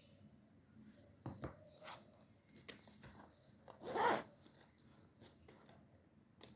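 Small handling noises at a study desk: a few light taps or clicks, then a short, louder rustle or scrape about four seconds in, like paper or stationery being moved.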